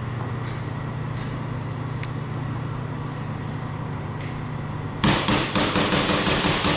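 Steady low hum with a few faint clicks, then about five seconds in an airsoft electric rifle opens up in a long, loud full-auto burst.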